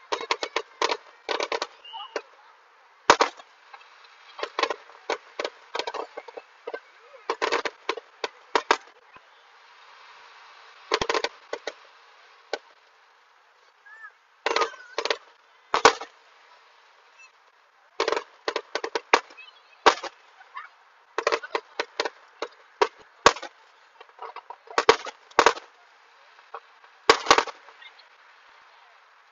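Aerial fireworks shells bursting: sharp bangs and crackles in quick, irregular clusters separated by short gaps.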